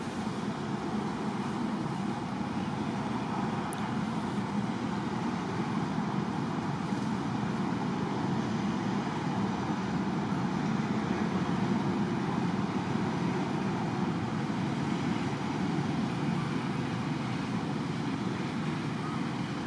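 Steady, even background noise with nothing standing out and no change in level.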